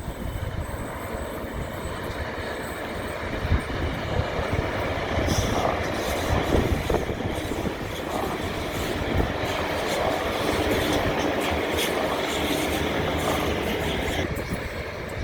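Train rolling past, a steady rumble of wheels on rail with scattered clicks, building gradually and easing off near the end.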